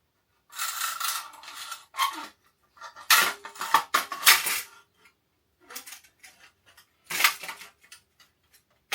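Metal motorcycle exhaust parts clanking and scraping against each other as they are handled and fitted, in several bursts with a brief metallic ring, the loudest about three seconds in.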